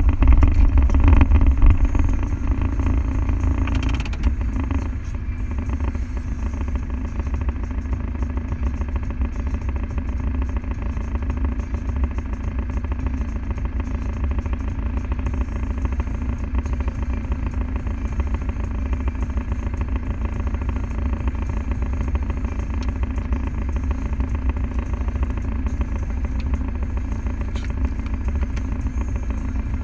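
Land Rover Defender diesel engine running steadily. It is a little louder for the first few seconds, then settles to an even drone.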